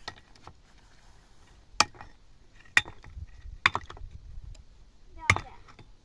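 Sharp chopping strokes, a single hit every second or so at uneven intervals, with a blade striking wood.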